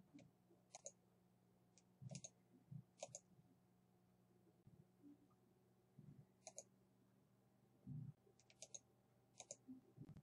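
Faint computer mouse clicks, about six of them spread unevenly, each a short sharp click, over a quiet room with a faint steady hum and a few soft low thumps.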